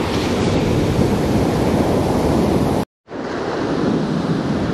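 Surf breaking and washing up the beach, with wind buffeting the microphone. About three seconds in, the sound cuts out for a moment, then the surf continues a little softer.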